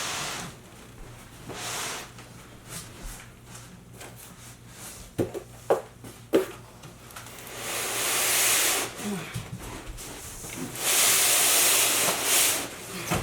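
Packaging being handled: long rustling swishes of plastic wrap or foam, with a few sharp knocks near the middle.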